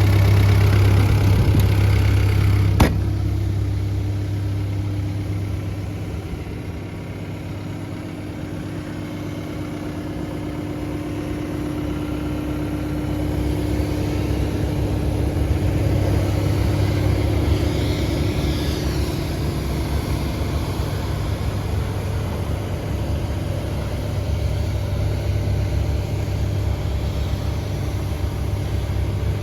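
Hitachi ZX85USB-6 excavator's diesel engine running with a steady low hum, with a sharp click about three seconds in. It falls quieter a few seconds in and builds back up over the following several seconds.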